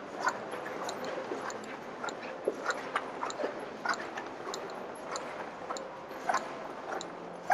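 Footsteps on a hard tiled mall floor, about two steps a second, over a steady background hum.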